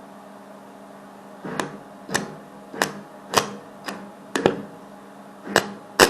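Hammer blows on metal during washing-machine drum bearing work: a series of sharp single knocks, about two a second, starting about a second and a half in over a steady low hum.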